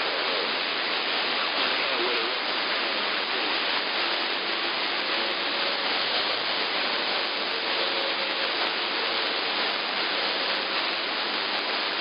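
AM receiver hiss from a software-defined radio tuned to CB channel 11 (27.085 MHz), steady and cut off sharply above about 5 kHz by the 5 kHz AM filter. Faint steady tones and wavering traces from weak, distant skip signals sit buried in the noise.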